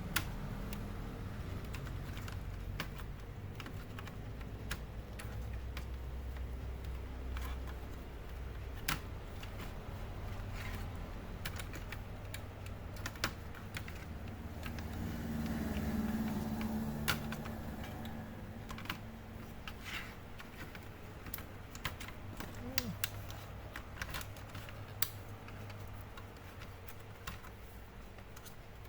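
Scattered small clicks and taps of laptop parts being handled and fitted back together by hand, over a low steady hum, with a soft swell of noise about halfway through.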